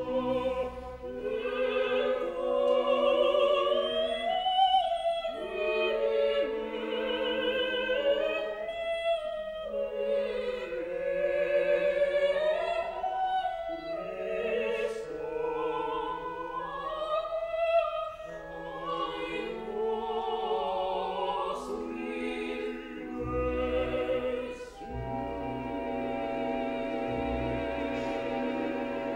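Classical sacred vocal music: a high singing voice with vibrato over sustained accompaniment, with the low chords growing fuller near the end.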